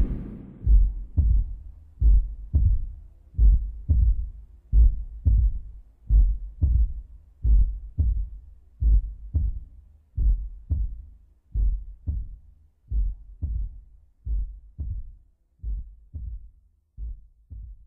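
Heartbeat sound effect: slow, low double thumps, lub-dub, about one pair every second and a half, slowly fading.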